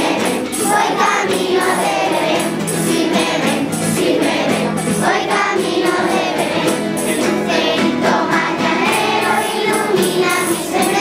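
A school choir of children and teenagers singing a Christmas carol together.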